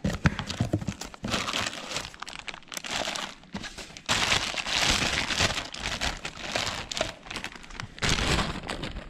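Clear plastic wrapping crinkling and rustling as a new brake caliper is lifted out of its cardboard box and unwrapped, in irregular handling noise that is loudest about halfway through.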